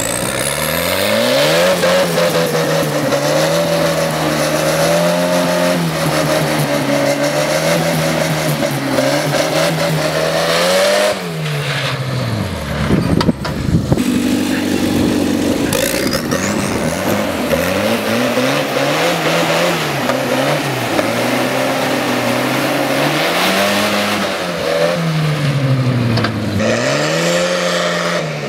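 Engine of a hot-rodded racing tractor running hard, its pitch rising and falling in several sweeps as it accelerates and eases off. There is a short burst of sharp knocks about halfway through.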